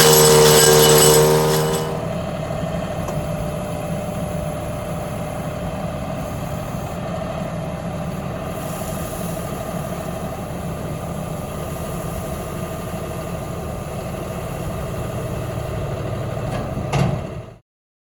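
An engine running, dropping from higher revs to a steady idle about two seconds in, then idling evenly until the sound cuts off abruptly near the end.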